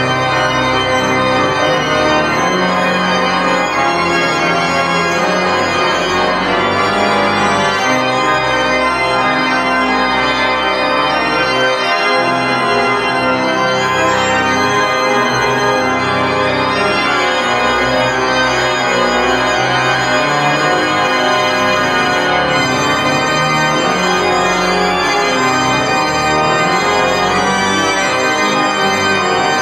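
Church organ played loudly in full, sustained chords, a continuous dense texture with changing harmonies and no break.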